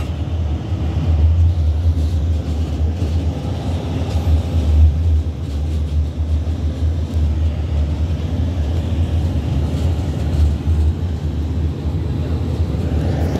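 Škoda 15T tram running, heard from inside the passenger cabin as a steady low rumble.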